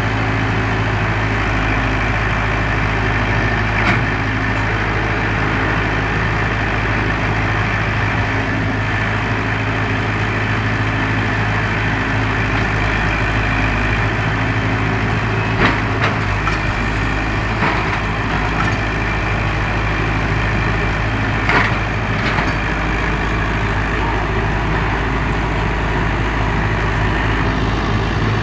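Heavy diesel engine of an excavator loading a dump truck, running steadily, with a few short sharp knocks scattered through.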